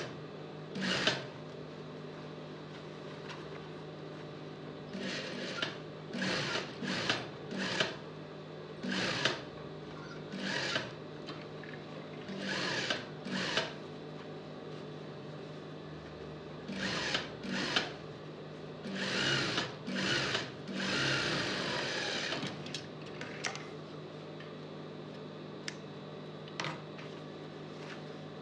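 Industrial single-needle lockstitch sewing machine stitching through layered vest fabric in many short runs of under a second each, with one longer run of a few seconds past the middle, over a steady low hum.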